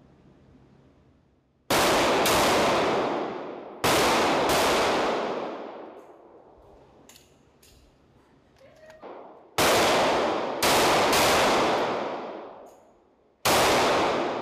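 M18 9 mm pistol shots in an indoor range: about eight shots, mostly in quick pairs, each followed by a long echo that dies away over a second or more.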